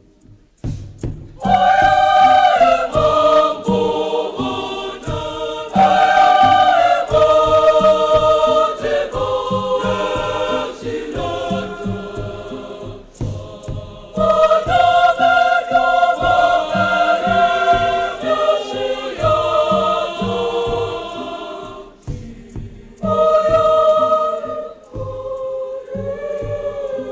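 Girls' choir singing a choral set piece in parts, in loud phrases with short breaks about 13 and 22 seconds in, over a steady low beat.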